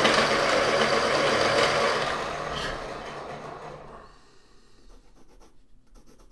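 Electric pencil sharpener grinding a pencil point, the steady motor grind fading out between about two and four seconds in. After that, faint pencil strokes scratch on paper.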